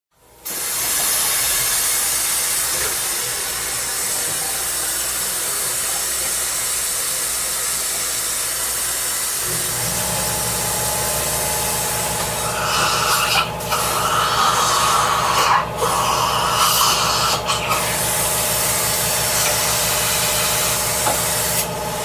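Dentist's suction and drill sounds: a steady high-pitched hiss. About halfway through a low motor hum joins it, and a little later a higher whine that breaks off briefly a few times.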